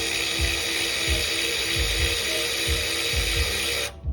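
Power tool running steadily with a hissing whir, cutting off abruptly near the end.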